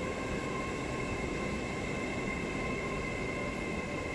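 LNER Azuma (Hitachi AT300) electric multiple unit moving slowly out of the station: a steady whine of a few held tones over an even rumble of the train.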